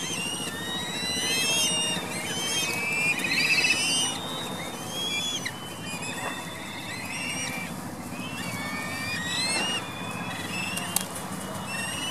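A flock of black-eared kites calling at once: many overlapping shrill, whinnying whistles that slide up and down in pitch, some wavering into trills, over a steady low background noise. A single sharp click sounds near the end.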